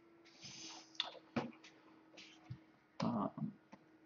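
Sparse light clicks of computer keys and mouse at a digital painting workstation, over a faint steady hum. A soft breath comes about half a second in and a short low mouth or throat sound about three seconds in.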